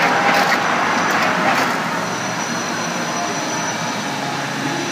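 Industrial machinery running with a steady noise, with a few sharp knocks in the first second and a half and a faint high whine in the middle.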